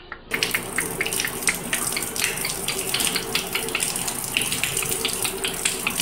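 Water running and splashing over a wet parakeet and its wire cage during a bath, with many quick patters of droplets. It starts after a brief gap at the very start.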